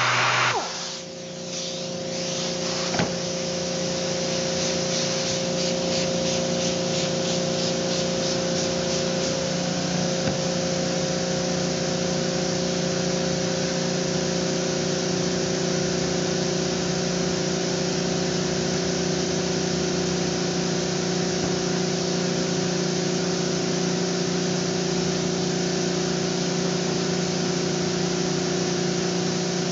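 Random orbital air sander shuts off about half a second in, leaving a steady hum of shop machinery with a hiss. A single click about three seconds in.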